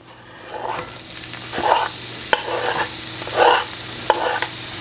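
Onions sizzling in butter and olive oil in a cast iron skillet as they are stirred. The sizzle builds over the first second, then the utensil scrapes across the pan about once a second, with a few sharp clicks against the pan.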